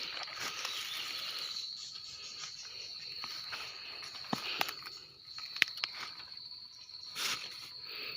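Insects trilling with one steady high-pitched tone, with a few short sharp crackles and rustles in the second half.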